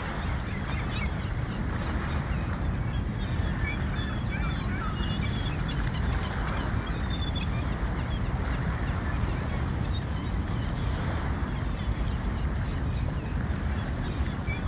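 Gulls calling in many short, repeated cries over a steady low rumble.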